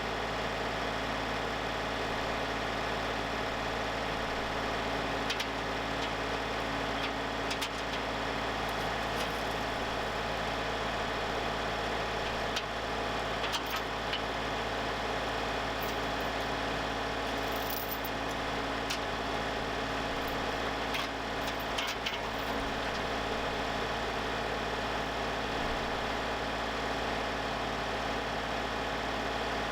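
Portable sawmill's engine running steadily, with a few light clicks and knocks around the middle.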